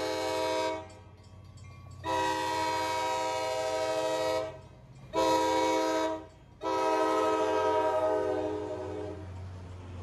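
A diesel commuter train's multi-chime air horn sounds the grade-crossing signal as it approaches the crossing. The end of a long blast is followed by a long, a short and a final long blast, over the low rumble of the locomotive's engine.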